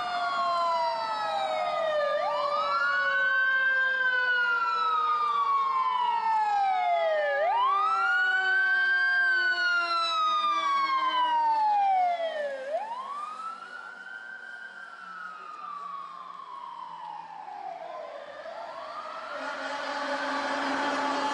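Fire engine siren wailing in slow rising and falling sweeps about every five seconds, with a second siren tone sliding steadily downward underneath. The siren gets noticeably quieter about halfway through as the engine moves away.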